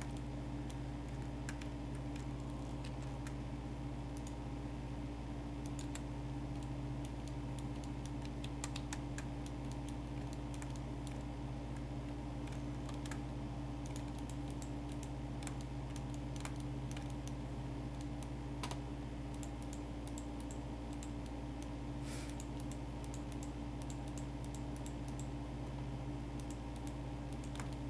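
Scattered light clicks of a computer keyboard and mouse being worked, irregular and spread through the whole stretch, over a steady low electrical hum.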